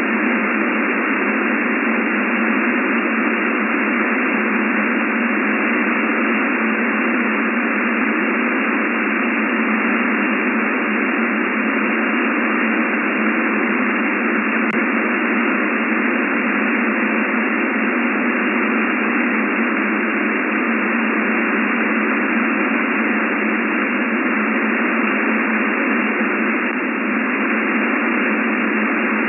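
Shortwave radio receiver tuned to an HF air-traffic control channel, giving out a loud, steady hiss of static on the open frequency while no station is transmitting. The hiss is cut off sharply above and below by the receiver's narrow voice filter, which gives it a thin, telephone-like sound.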